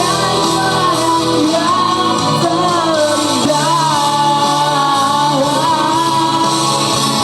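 Pop song with a singer's voice carrying a wavering melody over a steady instrumental accompaniment.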